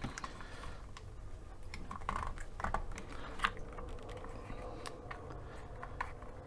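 Scattered small clicks and taps of parts being handled as the filter chamber is fitted back into a desoldering gun.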